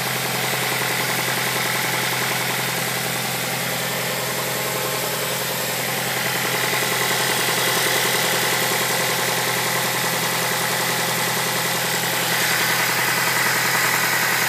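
Mazda 6 engine running steadily at idle, with what the owner calls an engine knock.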